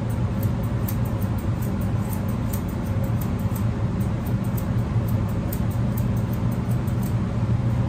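Grooming shears snipping lightly, a few cuts a second, over a steady low hum.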